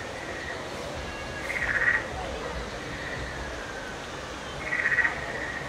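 Short, high, rapidly pulsed frog-like trills, heard twice a few seconds apart (about a second and a half in, and near the end), over a steady background hiss.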